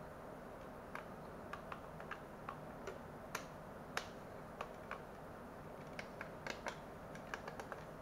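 Sharp, irregular plastic clicks and taps from a Hubsan H502E drone's handheld transmitter being handled and turned over in the hands, about twenty in all, a few louder ones around the middle.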